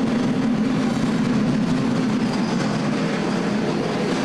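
Small 220-volt electric roller mill running steadily, crushing feed grain between its two rollers: a constant hum over an even noise of grain being crushed.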